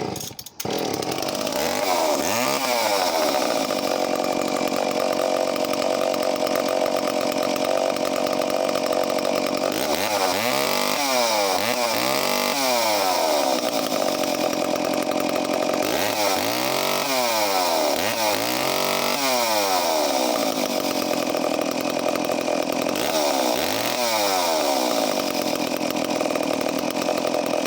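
Echo CS-451VL two-stroke chainsaw, about fifty years old, running just after being started with the choke off. It idles and is revved up and back down several times, in clusters of throttle blips.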